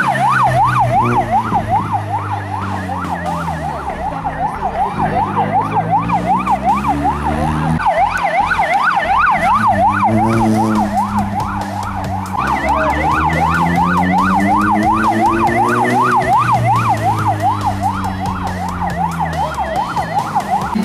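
A vehicle's yelp siren sweeping rapidly up and down, several times a second, over a vehicle engine that climbs in pitch and drops back twice, as it accelerates through the gears.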